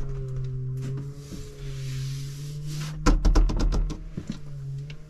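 A steady low hum, then a quick loud rattle of about ten knocks about three seconds in, and one more knock at the end.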